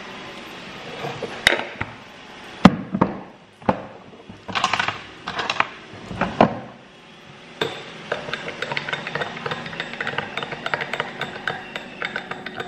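A small spoon knocking and scraping against a glass jar as white granules are scooped into it, then a spoon stirring inside a glass with fast, light clinking from about halfway through.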